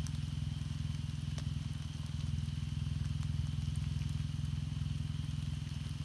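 A steady low hum of a running motor, pulsing finely and evenly, with a faint steady high tone above it and a few scattered small clicks.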